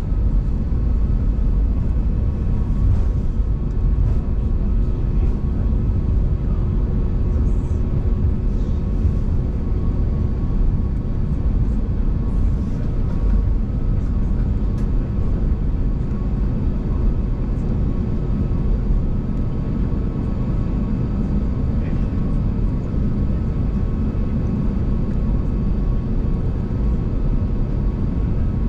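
Cabin noise of an Airbus A321neo taxiing: a steady low rumble of its Pratt & Whitney geared turbofans at idle and the airframe rolling on the taxiway, with a faint steady hum.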